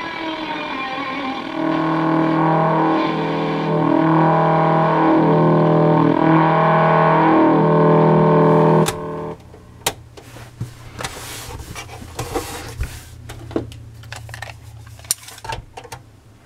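Music with guitar from an AM station, played through the small speaker of a Zenith F615 tube radio. About nine seconds in, the music cuts off abruptly with a click, and scattered clicks and rattles follow as a metal tape measure is pulled out and handled.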